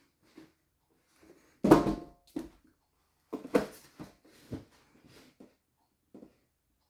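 Irregular knocks and clicks of small objects being handled and set down. The loudest comes about two seconds in, with a brief ring after it, and another strong one about three and a half seconds in.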